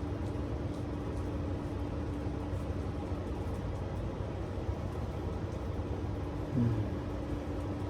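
Steady low rumble of distant vehicle traffic with a steady hum, and one short low falling sound about six and a half seconds in.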